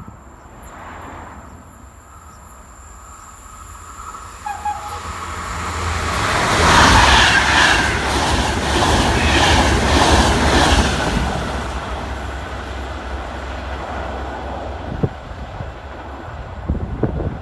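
Trenitalia Intercity passenger train passing at close range: it grows louder for a few seconds and is loudest while the carriages go by, with a rhythmic clatter of wheels on the rails, then dies away.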